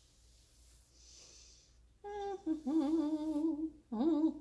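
A woman humming a wordless, wavering tune in two phrases, starting about halfway in after a quiet stretch.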